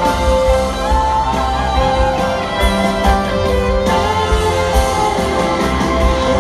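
Live rock band playing a slow piano ballad, with an electric lead guitar solo of sustained, bending notes over the band. Heard from the audience in a huge arena.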